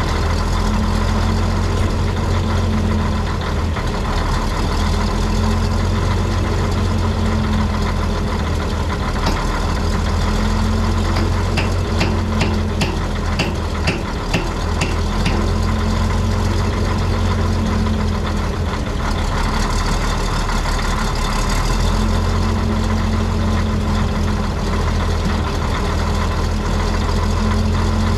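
Heavy diesel engine running steadily at idle. About halfway through comes a run of about eight light clicks, roughly two a second.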